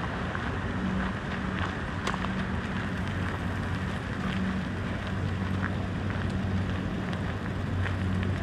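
City street ambience: a steady wash of traffic noise with a low engine drone under it and a few scattered sharp ticks.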